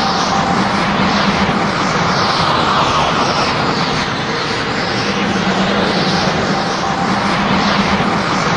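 Super Saiyan Berserker power-aura sound effect: a steady, loud rushing roar of energy, with a low hum that swells in and fades out twice.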